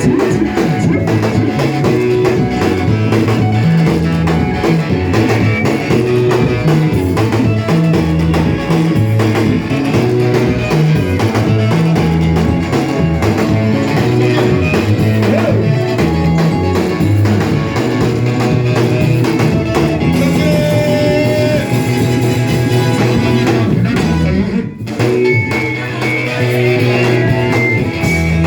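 Band music with guitar, strong bass notes and a drum kit keeping a steady beat, briefly dropping out for a moment near the end.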